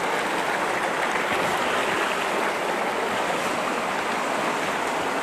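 Running water of a rocky mountain stream, a steady, even rush with no break.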